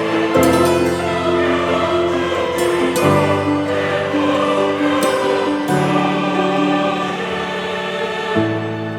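Background music: slow choral-style music with sustained voices or pads, the chords changing every few seconds.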